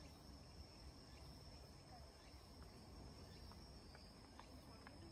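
Near silence, with a faint, steady, high-pitched trill of crickets.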